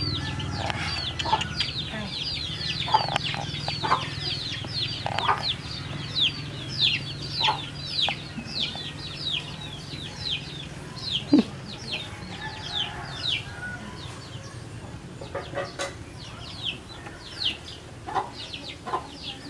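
Chicks peeping steadily, a quick run of short, high, falling cheeps, with a few soft knocks in between.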